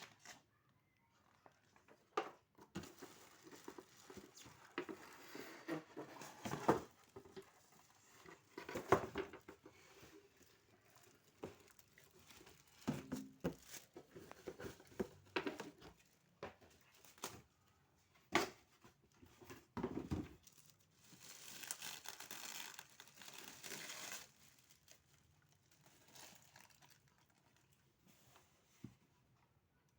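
Air fryer packaging being handled: irregular crinkling and rustling with scattered sharp knocks, and a longer tearing rustle lasting about three seconds a little past two-thirds of the way through.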